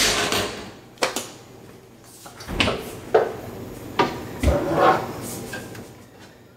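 A refrigerator door opened and containers moved around on its shelves: a run of separate knocks, clacks and clatters at uneven gaps, one with a low thud.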